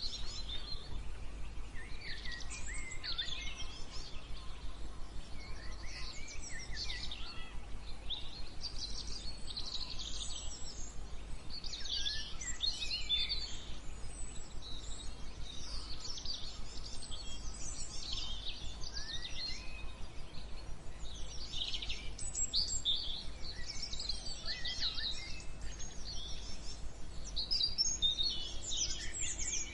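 Several songbirds singing and chirping, with quick twittering phrases and trills coming every second or two, over a steady low background hum.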